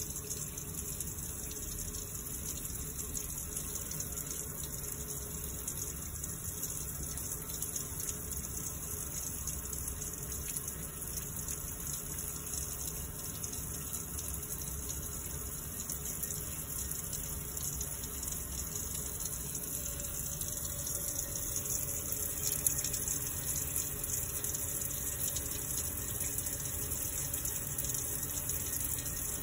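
Tap water running steadily from a faucet into a sink during handwashing, with one brief click about three-quarters of the way through.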